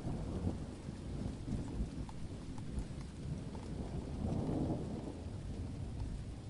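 Steady rain falling with low rumbling thunder, the rumble swelling about four seconds in.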